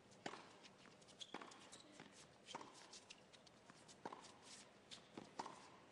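Tennis ball struck back and forth with racquets in a doubles rally: a sharp pop roughly every second, about six strikes, with players' footsteps on the court between them.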